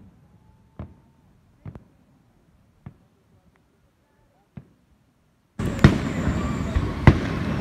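Fireworks shells bursting overhead: a series of sharp single bangs, about one every second or so, around seven in all. For most of the stretch the background drops out almost entirely, leaving the bangs on their own; a steady background noise comes back near the end with two more bangs.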